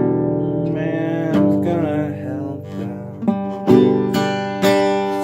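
Music: strummed acoustic guitar chords, with a wavering melody line over them for a while from about a second in.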